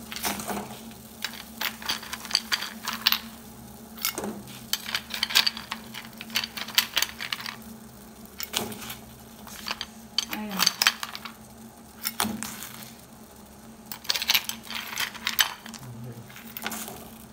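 Spoon stirring lumps of rock sugar in a pot of heating water: irregular clusters of clinks and scrapes as the spoon and sugar knock against the pot, every second or two, over a low steady hum.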